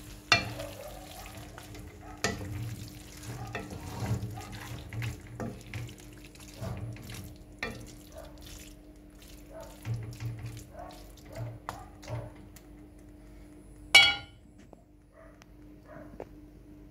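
Metal utensil stirring and scraping through saucy spaghetti in a cast-iron skillet: wet squelching with scattered clinks against the pan, and one sharp metal clank with a short ring about 14 seconds in.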